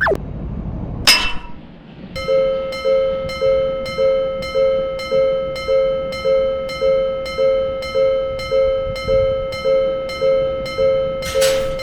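Japanese railroad crossing warning bell starting up about two seconds in and then ringing steadily, an evenly repeated electronic 'kan-kan' strike at a little over two a second. It comes after a brief falling sweep and a sharp click, with a short burst of hiss near the end.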